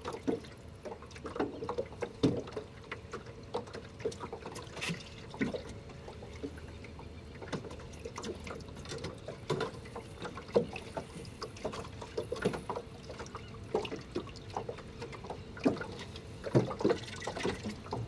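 Small waves lapping and slapping against the hull of a small fishing boat, with irregular knocks and clicks throughout.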